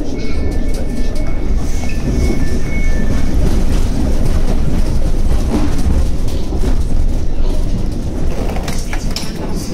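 Underground train running, heard from inside the carriage: a loud, steady low rumble with rail clatter. A faint high whine sounds in the first few seconds, and a few sharp clicks come near the end.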